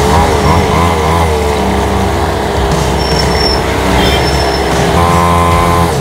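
Small 49cc two-stroke mini dirt bike engines running under way, a buzzing whose pitch rises and falls with the throttle in the first second or so and holds steady near the end.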